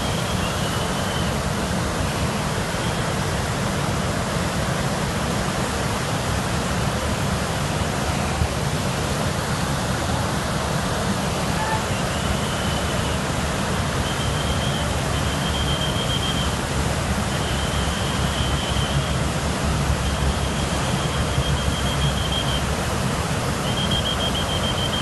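Tawi River in flood, its fast brown water making a steady, loud rushing noise. In the second half a short high tone comes again and again, each about a second long.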